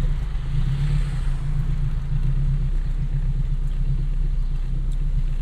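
Turbocharged K24/K20 four-cylinder and straight-piped exhaust of an AWD-converted 2002 Acura RSX Type-S running with a steady low drone while driving. Heard from inside the cabin with the windows down.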